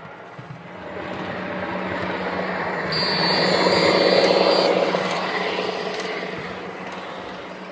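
Lionel O-gauge Union Pacific M-10000 model train running on its track, the rumble of its wheels and motor swelling as it passes close by about four seconds in, then fading as it moves away.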